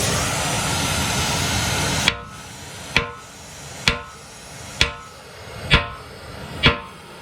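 A steady rushing noise stops abruptly about two seconds in. Then a mash hammer strikes a steel drift six times, about once a second, each blow ringing, to drive out a seized quick-attach pin on a Bobcat 753.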